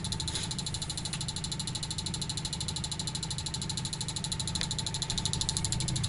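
Homemade reed-switch pulse motor running: its magnet rotor spins past a ferrite-core coil, giving an even, rapid pulsing over a steady hum.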